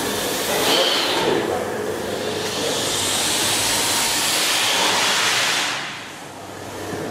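Pinchbeck beam pumping engine running: a steady, loud clatter of machinery with a hiss. It drops away sharply about six seconds in.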